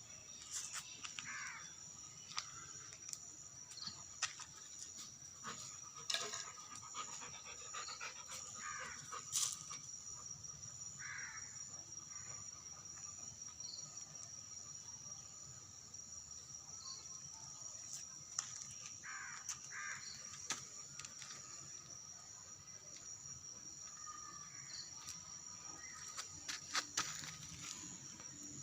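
Short bird calls every few seconds over a steady high-pitched drone of insects, with scattered sharp clicks.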